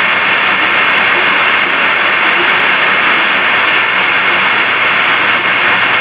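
A steady, loud wash of hiss with no words in it, high- and low-pass filtered and turned back up, so that it is cut off sharply above and thin at the bottom. A faint steady whistle runs through it.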